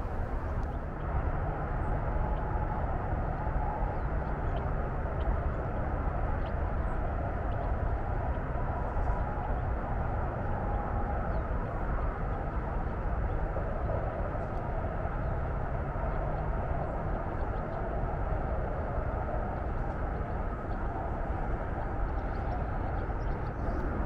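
Steady rumble of highway traffic, a constant wash of low noise with no single vehicle standing out.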